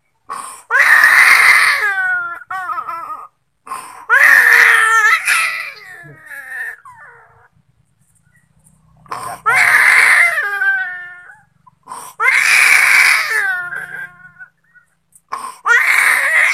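Infant crying loudly in about five long wails, each starting high and falling in pitch, with short breaths between them.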